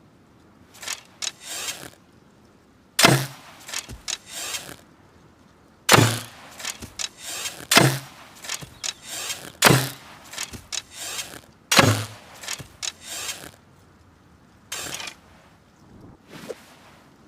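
Hunting bow being shot again and again: each release is a sharp snap with a brief low thump from the string, followed by a short clatter of smaller clicks and rattles. There are five strong shots about two seconds apart, with lighter rattling before and after them.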